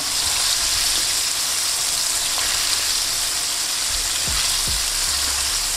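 Flour-dredged chicken wings deep-frying in hot oil in a wok, a steady high-pitched sizzle. A couple of soft low knocks about four seconds in.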